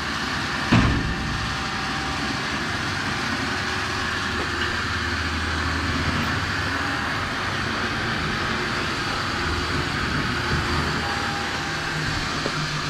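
A vehicle engine idling steadily, with one sharp knock about a second in.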